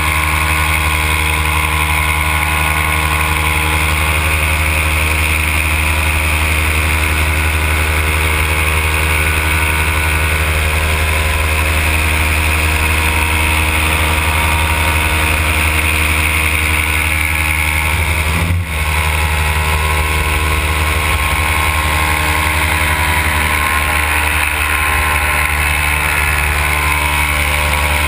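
A paramotor's Simonini two-stroke engine and propeller running steadily in cruising flight, heard close up from the pilot's harness. There is one brief dip in the sound about two-thirds of the way through.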